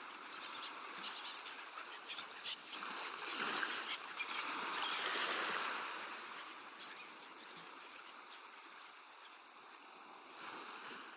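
Water sloshing and rushing inside a washing machine, rising and falling in several swells, then fading away near the end.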